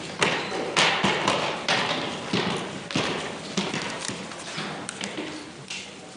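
Irregular knocks, taps and clatter of people getting up and leaving at the close of a meeting in a hall, about two or three sharp knocks a second, growing fainter toward the end.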